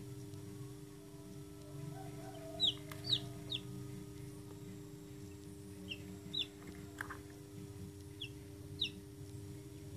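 Newly hatched chick peeping: seven short, high peeps, each falling in pitch, in three small groups (three, then two, then two), over a steady low hum.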